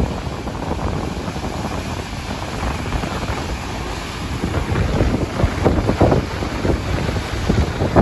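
Rough sea surf breaking and washing over rocks and shore, with wind buffeting the microphone as a steady low rumble. The wash grows louder and more crackling a little past halfway.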